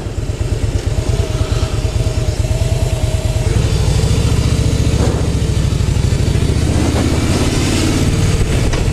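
Harley-Davidson Softail Slim's V-twin engine running on the move, picked up by a helmet boom mic with wind rushing over it; the engine gets louder from about three and a half seconds in.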